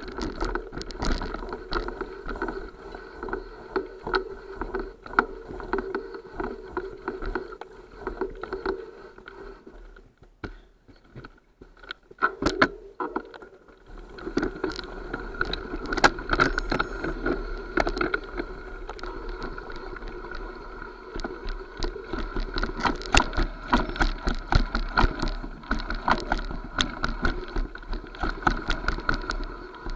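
Mountain bike descending a rough, rocky forest trail: a continuous irregular rattle and clatter of the bike and tyres over stones and roots, with a steady hum underneath. It quietens briefly about ten seconds in, then the clatter picks up again.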